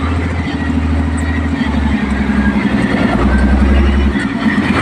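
Diesel engine of a container truck running, heard from inside the cab as the truck is manoeuvred: a steady low drone with a fast, even throb. About three seconds in the note goes deeper and louder for roughly a second, then eases.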